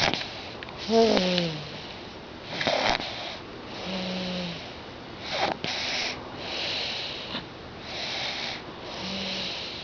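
A sleeper with a nose stuffed up by a cold snoring: breathy, nasal snoring breaths every second or two, a few of them with a short low hum that drops in pitch.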